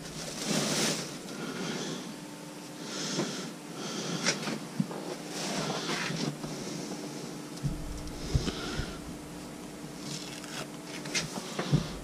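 Rustling and swishing of a cotton t-shirt and bags being handled, in a series of short bursts, with a few light knocks and clicks.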